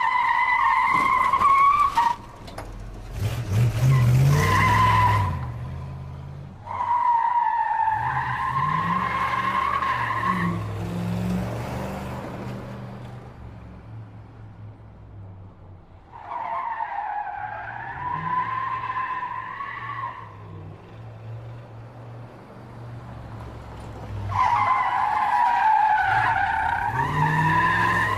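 Car tyres squealing through about five long skids, each a held, wavering squeal lasting one to four seconds, with quieter gaps between them. Underneath, the car's engine runs and revs up.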